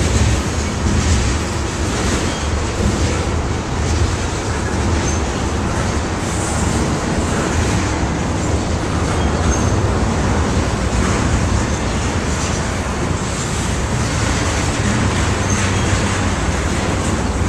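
Freight train tank cars rolling steadily past close by: the loud continuous rumble of steel wheels on rail, with faint irregular clicks over it.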